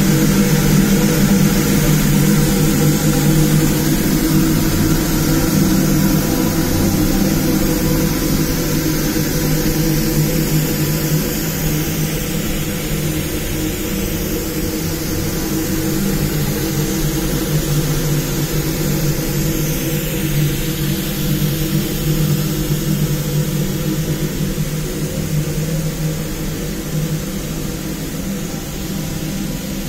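Steady hum and whir of industrial boiler-house machinery, a low drone with a hiss above it, easing slightly in level.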